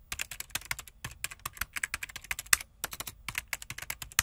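Computer keyboard typing sound effect: a rapid, unbroken run of keystroke clicks, about nine a second.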